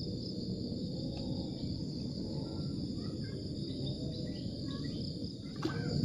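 Insects droning steadily in a continuous high-pitched chorus over a low, rumbling background noise, with a faint click near the end.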